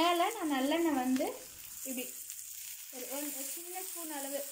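Ragi adai sizzling steadily on a hot dosa griddle, cooking on its first side. Over it a person's voice comes and goes in short phrases, louder than the sizzle.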